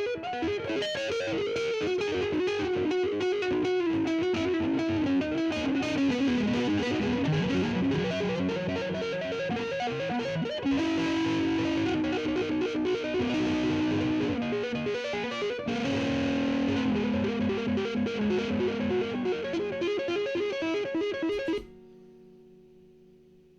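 Electric guitar played with fast tapped note patterns over a loop of itself played back by a Donner looper pedal, the live and looped parts layered into harmony. The playing cuts off suddenly near the end, leaving a faint fading note.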